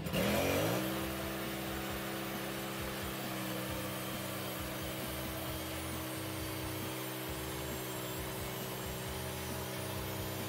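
Portable bandsaw sawmill's gas engine revving up over the first second, then running at a steady speed as the head feeds its blade through a spruce log.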